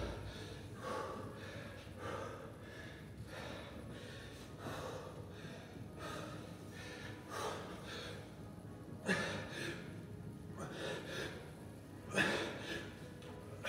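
A man's heavy, gasping breathing from hard exertion, one breath about every second, with two louder gasps near the end.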